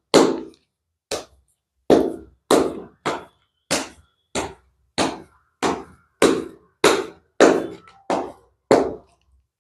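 A deck of tarot cards being shuffled by hand, a crisp slap of cards about one and a half times a second, some fourteen in a row, stopping about nine seconds in.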